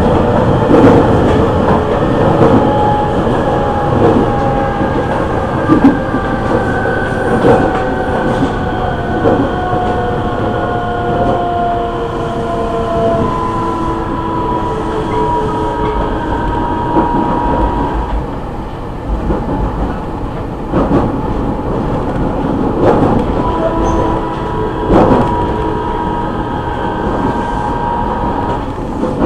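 Original Siemens VVVF inverter and traction motors of a JR East E501 series motor car whining under the floor, with several tones slowly falling in pitch over the first half and holding steadier later. Under the whine are the running rumble and a few rail-joint clacks.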